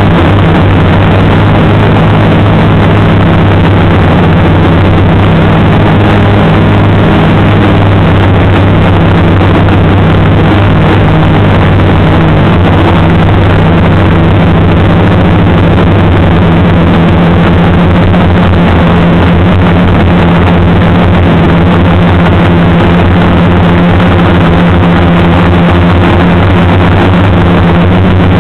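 Brushless outrunner motors and propellers of a small multirotor drone (Turnigy 2213N motors) giving a loud, steady drone with a low hum under a dense hiss, picked up by the onboard microphone and carried over the FPV video link.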